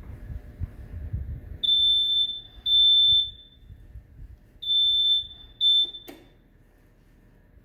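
Door alarm giving four high-pitched beeps in two pairs, each about half a second long. The last beep is cut short by a sharp click.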